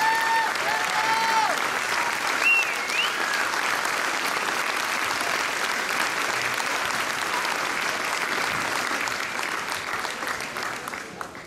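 Audience applauding at a school band concert, with a few shrill cheers and whistles in the first three seconds; the applause dies away near the end.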